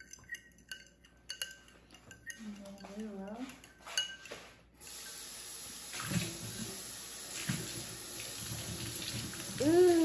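Metal fork clinking against a ceramic bowl as beaten eggs are stirred, then a kitchen tap running steadily from about halfway through. A short voice sound partway in and a louder rising-then-falling voice near the end.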